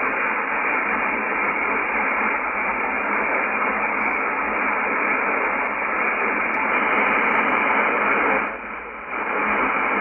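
Steady shortwave static hiss from a Yaesu FTdx10 receiver in upper sideband on the 11396 kHz New York air traffic control frequency: an open channel with no one transmitting, the hiss cut off above voice pitch by the sideband filter. It dips briefly near the end.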